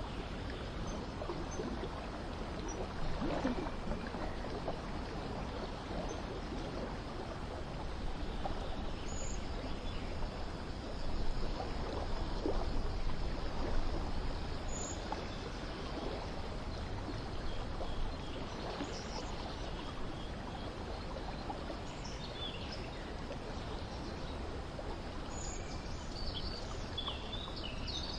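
Steady running water, like a stream or fountain, with a few short bird chirps here and there, more of them near the end.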